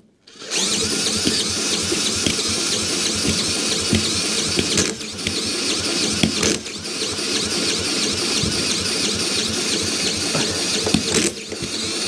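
Cordless drill driving the flywheel nut of a Mountfield lawnmower's four-stroke overhead-valve engine, spinning it over in place of the broken pull cord. The drill runs steadily with short dips about five and six and a half seconds in and near the end, and the engine turns over without starting.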